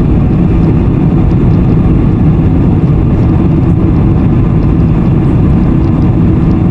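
Steady cabin noise of a Boeing 747-400 climbing after takeoff: its jet engines and the rushing air, heard from a window seat over the wing as a loud, even, low rumble.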